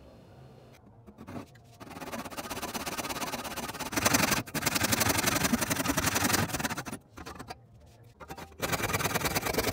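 A tool scraping against a workpiece in long rasping passes, louder from about four seconds in, with a short pause before it starts again near the end.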